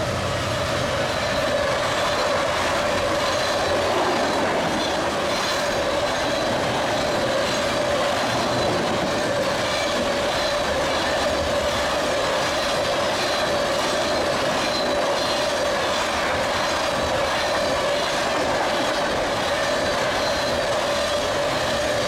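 Freight train of black tank cars rolling past close by: steady rumble and clatter of the cars' wheels on the rails, with a steady high whine running over it.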